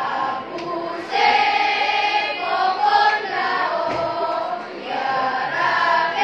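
A choir singing, several voices holding sustained notes together, coming in strongly about a second in.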